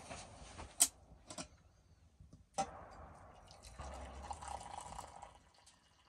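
A few sharp clinks of glassware, then hot tea being poured into a glass for about three seconds.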